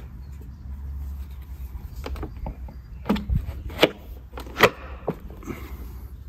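Hand-fitted parts of a Yardforce LM C38 reel mower's wheel assembly clicking and knocking during reassembly: a handful of short, sharp knocks between about two and five seconds in, the loudest near four and a half seconds, over a low steady rumble.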